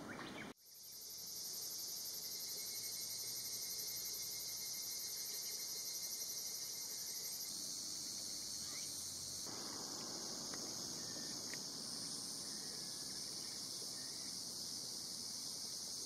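Cicadas singing: a steady, high-pitched chorus with a fast pulsing in it, which comes in suddenly about half a second in.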